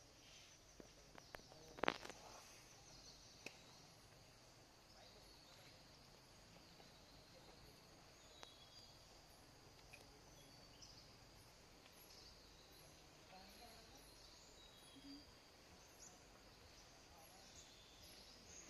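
Faint forest ambience: a steady high insect drone with a few short bird chirps. Several sharp clicks come in the first few seconds, the loudest about two seconds in.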